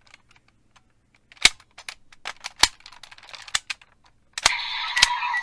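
Sharp plastic clicks and snaps from a Kamen Rider Geats Raise Buckle being pushed into and worked in the Desire Driver toy belt. About four seconds in, the belt's small speaker starts playing its electronic sound effect.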